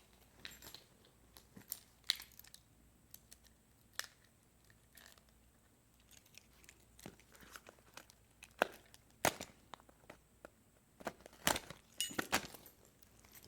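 A small cardboard box being opened by hand: a key slitting the packing tape, then scattered clicks, scrapes and crinkles of cardboard and plastic packaging, loudest about nine seconds in and again near the end.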